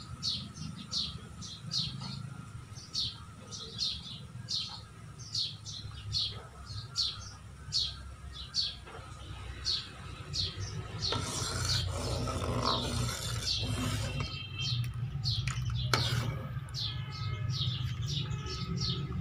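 A bird chirping over and over, about two short calls a second, over a steady low rumble. From about eleven seconds in, a busier, noisier stretch of chirping follows.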